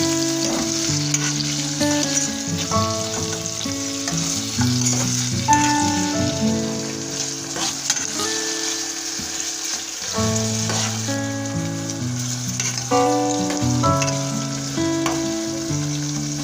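Food sizzling as it fries in a pan, with a few faint scrapes. Background music of plucked notes plays over it.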